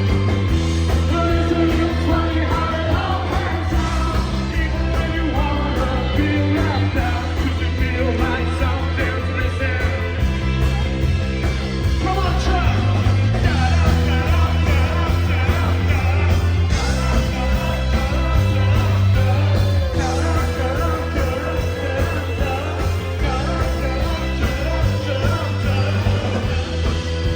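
Live indie rock band playing loudly, with a sung vocal over driving bass, drums and guitars, heard as crowd-recorded concert audio.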